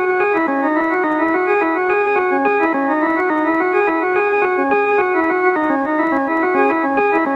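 Background music: a keyboard instrument playing quick, even runs of notes at a steady level.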